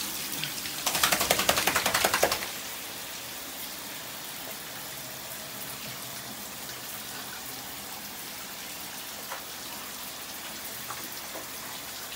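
Shower water spraying during a dog's bath in a small tiled shower, a steady hiss. About a second in, a loud burst of rapid rattling clicks lasts about a second and a half.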